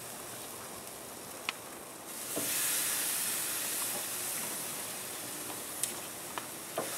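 Raw half chickens sizzling as they are laid on the hot steel grate of a barrel pit, a steady high hiss that swells about two seconds in, with a few light clicks.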